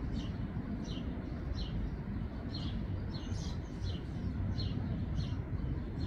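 A bird chirping over and over, one short falling chirp about every two-thirds of a second, over a steady low background rumble.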